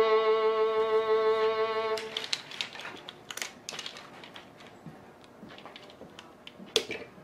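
A violin holds one long note for about two seconds and stops. Then come small clicks and rattles of 35mm film being handled in a tape splicer, with one sharp click near the end.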